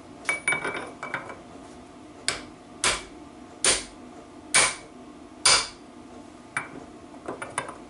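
Hammer blows on metal, driving a main bearing onto a BSA B25 Starfire crankshaft as a drive fit. A few light ringing clinks come first, then five sharp strikes just under a second apart, then a few lighter taps near the end.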